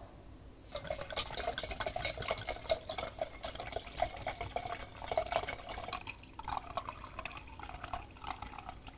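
Rum pouring from a glass bottle in a steady stream into a glass carafe already holding liquid, with a brief break about six seconds in.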